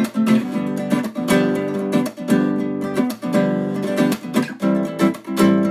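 Background music of acoustic guitar strumming chords in a steady rhythm.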